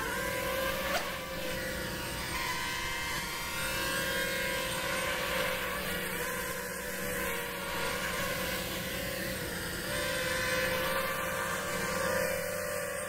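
Racing quadcopter's brushless motors and propellers whining steadily, the stacked pitch rising and falling as the throttle changes while it hovers and darts about.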